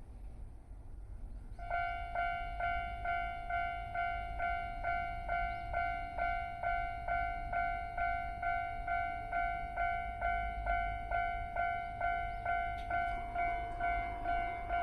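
Japanese railway level-crossing warning bell starting up and ringing about twice a second, each strike the same bright ringing tone. It signals that a train is approaching. Under it is a low rumble.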